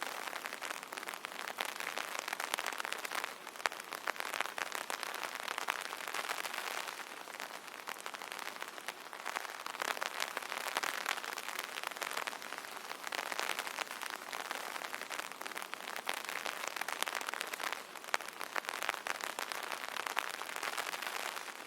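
Rain pattering on an umbrella canopy: a dense, steady hiss of drops with many small sharp taps, swelling and easing gently every few seconds.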